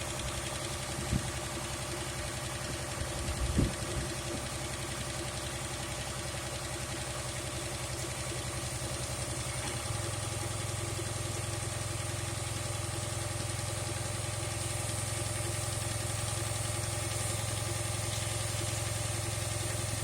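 2008 Dodge Charger AWD engine idling steadily, with a couple of brief knocks in the first few seconds. About halfway through the low hum steps up and then holds steady. The engine has a vacuum leak that a new tube seal did not cure.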